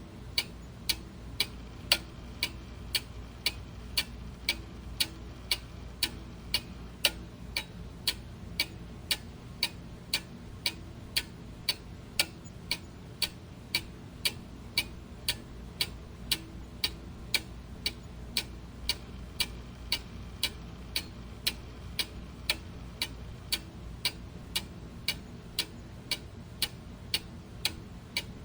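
Clock ticking steadily, about two even ticks a second, over a faint steady low hum.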